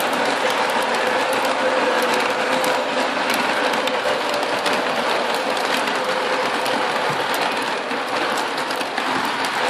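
Lionel O gauge model train running along its track, heard from aboard: a steady rolling rattle of wheels on the rails with a faint steady hum and many small clicks.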